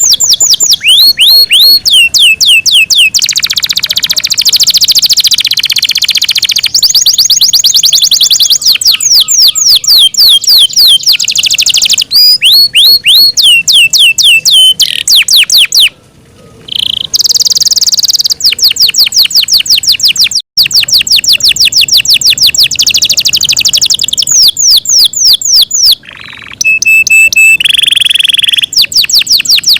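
Yorkshire canary singing loudly: fast trills of rapidly repeated sweeping notes, broken by a few longer held whistles, with short pauses about halfway through and near the end.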